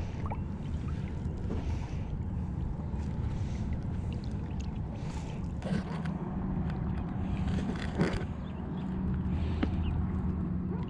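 Water lapping and swishing beside a kayak as a redfish is held in the water on a lip gripper to revive it, with a steady wind rumble on the microphone. A couple of light knocks come about six and eight seconds in.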